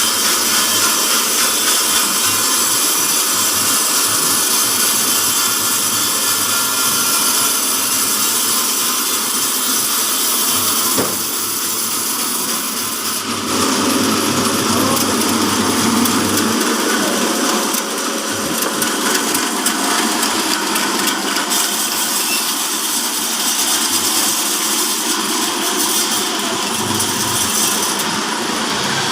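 Horizontal band sawmill, driven by a 5 HP electric motor, running with its blade cutting through timber. The sound dips briefly about eleven seconds in, then comes back heavier a couple of seconds later.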